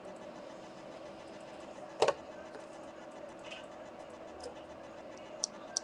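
Small objects being picked up and set down: one sharp knock about two seconds in and a few lighter clicks near the end, over a steady faint hum.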